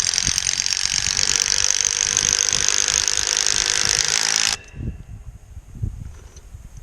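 Cordless power driver driving a screw to fix a hold-down bracket, running hard with a rattling whir for about four and a half seconds, then stopping suddenly. A few faint knocks follow.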